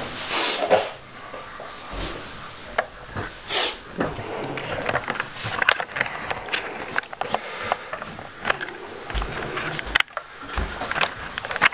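A person sniffing, twice with a short hiss of breath, amid scattered knocks and clatter.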